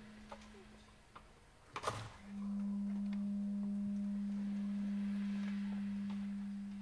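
A clarinet-family reed instrument holding one long, steady low note, a very pure tone, that starts about two seconds in and begins to fade near the end. A short knock comes just before the note enters.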